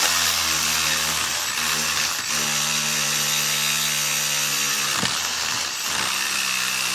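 Corded reciprocating saw running steadily, its blade sawing back and forth through the metal end of a microwave magnetron.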